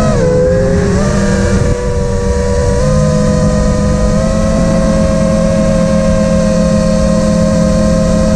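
FPV quadcopter's electric motors and props whining steadily as heard on board, several close pitches running together. The pitch wavers briefly at first, steps up slightly about three seconds in, then holds level.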